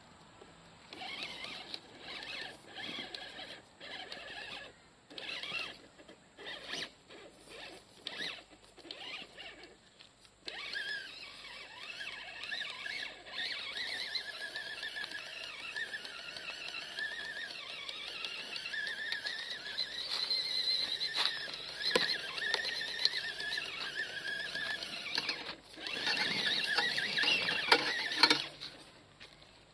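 RGT Jimny RC crawler's electric motor and gearbox whining, first in short stop-start throttle bursts, then held in a steady high whine as it climbs. Near the end comes a louder, rougher stretch of noise.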